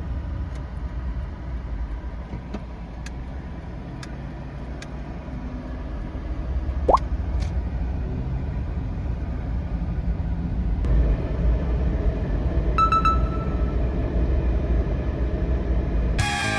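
Steady low road and engine rumble of a Suzuki Every van on the move, heard from inside, with scattered light clicks and a short rising squeak about seven seconds in. The noise grows louder about eleven seconds in.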